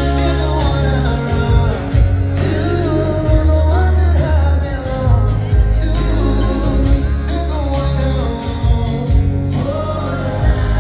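Live band playing a ballad with a male singer, the sung melody gliding between notes over a heavy, sustained bass.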